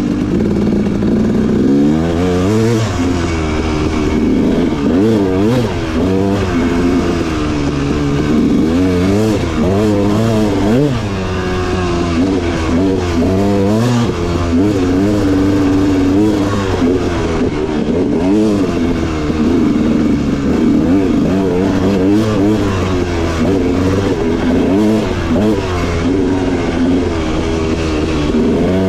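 Dirt bike engine on a trail ride, revving up and down again and again as the throttle is opened and closed, its pitch rising and falling every second or two.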